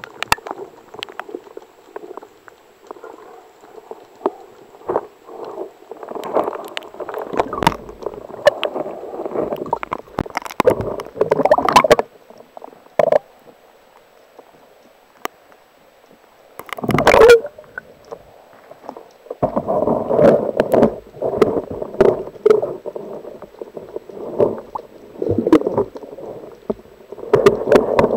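Muffled underwater gurgling and sloshing from a spearfisher's movements, with irregular knocks and clicks. It goes quiet for a few seconds just past the middle, then a loud surge about 17 seconds in, followed by more churning.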